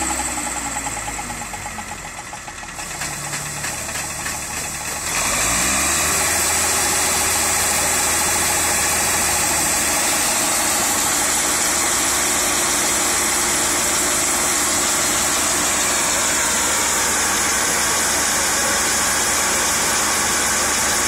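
Combine harvester's diesel engine slowing over the first couple of seconds, then revving up about five seconds in and running steadily at high revs. A steady hiss from the running machinery and grain-unloading auger sits over the engine.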